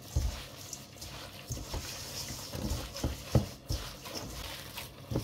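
Raw minced beef mixed with grated cheese, breadcrumbs and egg being kneaded by a gloved hand in a stainless steel bowl: short, irregular squishes, one louder than the rest a little past halfway.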